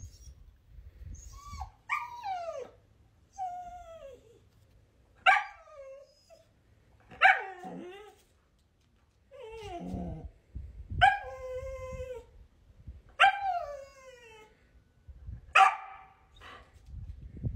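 A dog vocalizing insistently at its owner. It gives a string of about nine drawn-out whining barks, each falling in pitch, roughly one every two seconds.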